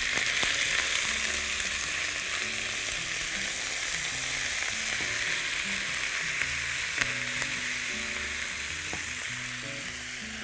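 Thin strips of beef sizzling in sesame oil in a very hot wok, with a steady hiss, while a spatula stirs them. The sizzle eases off near the end.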